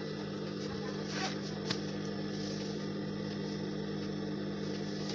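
A steady machine hum, with soft rustling of fabric being handled and a single light tick a little under two seconds in.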